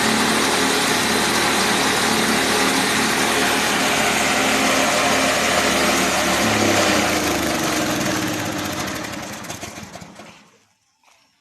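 Grass chopper machine running steadily, then shut off: its pitch falls from about seven seconds in and it winds down to a stop just before the end.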